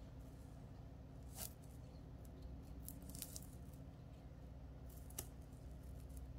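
Clear plastic sealing tape being peeled off a glass aftershave bottle's cap: faint rustling with a few sharp crackles as the strip comes away.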